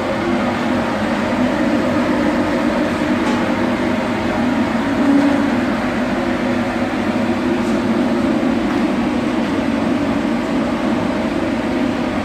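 Rotary dryer machine running: a steady, loud mechanical drone with a constant low hum.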